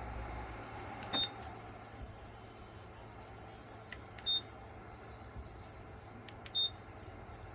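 Electric wall heater beeping three times, one short high beep every two to three seconds, each just after a faint click of a button press, over a steady low hum.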